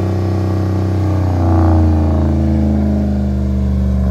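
2011 Ram 1500's 5.7-litre Hemi V8 idling through a muffler delete, with an open, deep exhaust note. About a second and a half in, a light blip of the throttle raises the pitch briefly, and the engine then eases back down to idle.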